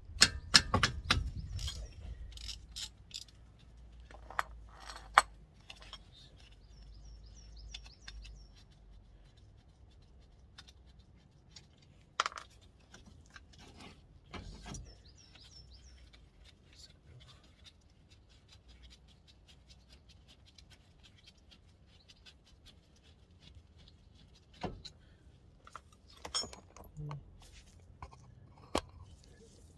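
Scattered metallic clinks and knocks of a spanner and socket on a car's front brake caliper bolts as the caliper is undone, a cluster of them at the start and more near the end, with long quiet stretches between.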